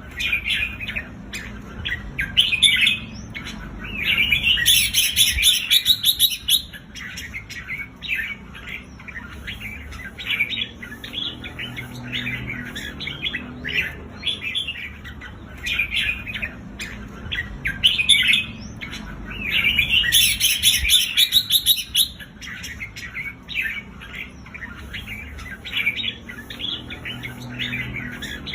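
Red-whiskered bulbul giving rapid, chattering 'rik' calls, with louder, denser bursts of chatter about 4 seconds in and again about 20 seconds in.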